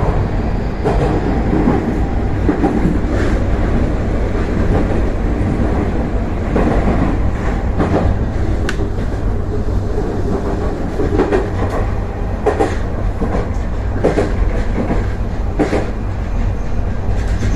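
Tokyu 3020 series electric commuter train running at speed, heard inside the car: a steady rumble and hum with irregular clacks as the wheels pass over rail joints.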